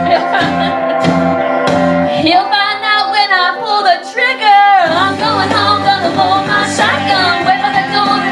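Country song with a woman singing over a guitar-backed accompaniment.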